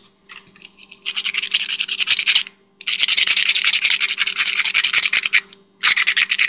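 Sandpaper rubbed rapidly back and forth by hand over a metal bolt head, in three spells of quick scratchy strokes with short pauses between them.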